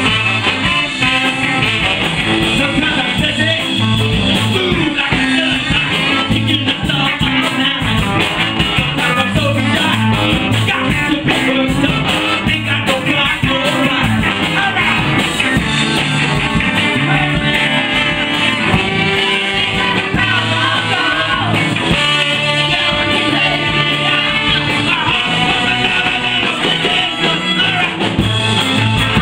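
Live rock band with a horn section playing: electric guitars, bass, drums, saxophone, trombone and trumpet, with a male lead singer and backing vocals.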